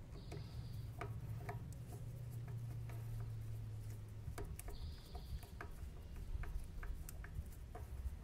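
Faint, irregular clicks and ticks of a small screwdriver driving the retaining screw into the DIN plug connector on a hydraulic solenoid valve, over a low steady hum.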